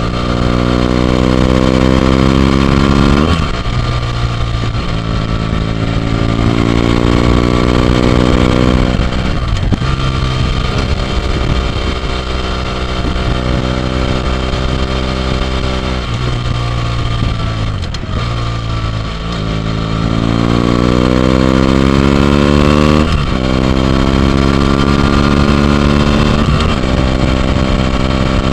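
BMW F800GT's parallel-twin engine through an AC Schnitzer Stealth end silencer, heard from onboard under way. The revs rise under acceleration and drop sharply at upshifts, about three, nine and twenty-three seconds in. Midway the revs fall away as the throttle is eased, then climb again.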